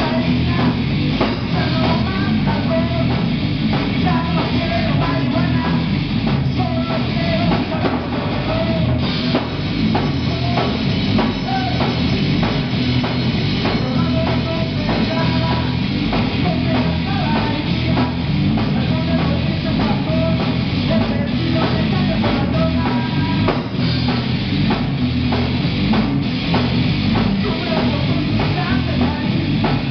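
Live rock band playing loud and without a break: electric guitar, bass and a drum kit through small amplifiers, with a singer on a microphone over the top.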